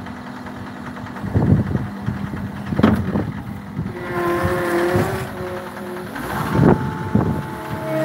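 John Deere 330G skid steer loader's diesel engine running as the machine moves with a loaded bucket. About four seconds in, its note steps up to a higher steady pitch, and a few short thumps come through.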